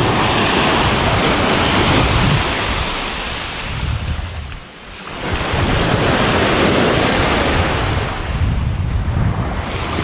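Wind buffeting the microphone over the wash of small waves breaking on a sandy beach. The gusts ease off sharply about halfway through and again briefly near the end.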